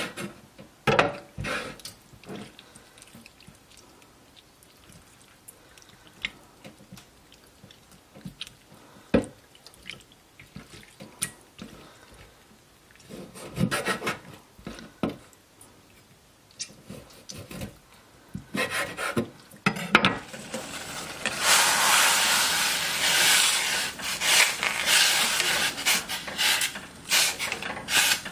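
Kitchen knife tapping and scraping on a wooden cutting board in scattered knocks while cutting up webfoot octopus. About twenty seconds in, a steady rush of water starts and keeps going, louder than the knife.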